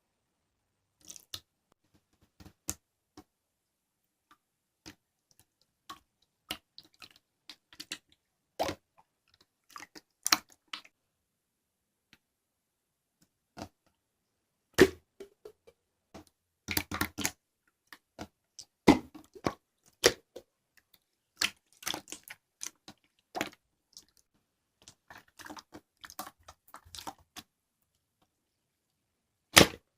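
Slime being pressed and squished by hand, giving irregular sharp pops and clicks, some single and some in quick clusters, with short quiet gaps between them.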